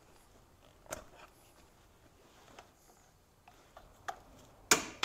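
Rubber air intake boots and plastic intake parts being handled and pulled loose in an engine bay: a few small clicks and knocks, then one sharp, louder clack near the end.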